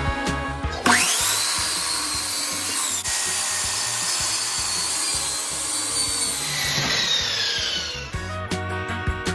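A sliding compound miter saw whines up to speed about a second in and cuts through a white board with a steady noisy whine. Near the end the whine falls away as the blade spins down.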